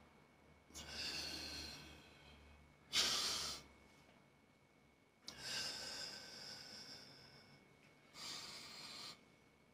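A man breathing hard with the effort of dumbbell curls: four breaths, the long ones trailing off. A short, sharp breath about three seconds in is the loudest.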